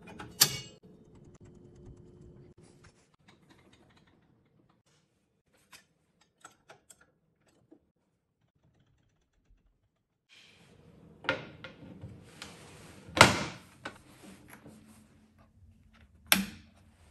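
Scattered metal clicks and clunks of a blade and brake cartridge being fitted inside a SawStop table saw: a sharp click just after the start, a few faint ticks, then a near-quiet stretch. Near the end come several louder knocks, the loudest about two-thirds of the way in, and a last click at the saw's switch panel.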